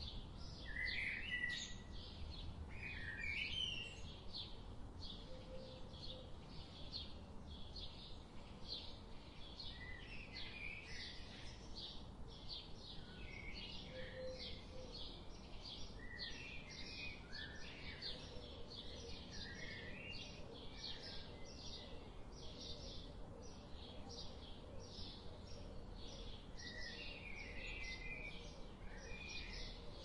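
Songbirds singing and chirping: a steady series of short high notes repeats about twice a second, with other birds' brief warbled phrases coming in now and then. A faint low background rumble runs underneath.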